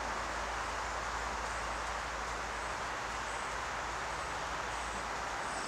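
Steady, even outdoor background hiss with a low hum beneath it and no distinct sounds standing out.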